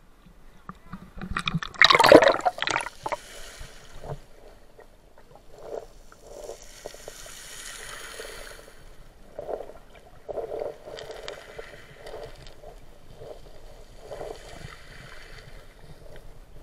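Seawater splashing loudly as the camera plunges under the surface about two seconds in, then muffled underwater sound of water moving around the camera, with soft irregular knocks.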